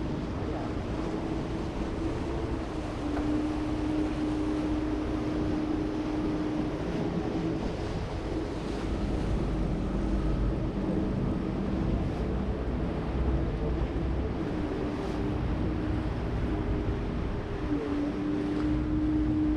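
Boat engine running with a steady drone, over the wash of water and wind noise on the microphone.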